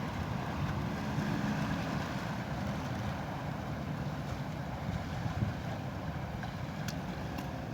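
Steady low seaside rumble of wind and water, with a faint low drone under it and a few faint clicks near the end.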